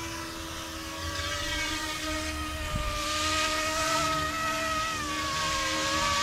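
Small electric RC scale helicopter (YXZNRC F09 Black Hawk) spooling up: its motor and rotor whine rises in pitch from about a second in, then wavers as it lifts off and flies. A rushing rotor noise swells twice.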